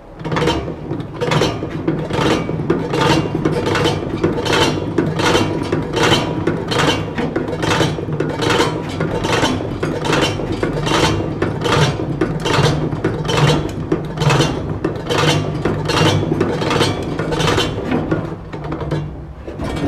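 Manual single-punch tablet press (MKS-TBL11) being worked by hand, its stainless-steel punch, cam and gears clacking in a regular rhythm of about two or three strokes a second over a steady low hum. Each stroke compresses powder into a tablet and pushes it out.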